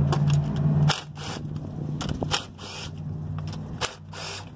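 Cordless DeWalt impact driver hammering on a bolt with a steady buzzing rattle that stops abruptly about a second in. Scattered short clicks and scrapes follow as the tool and parts are handled.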